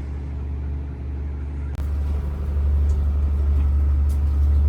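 Steady low rumble of a dive boat's engine running, with a sudden break about two seconds in, after which it is louder.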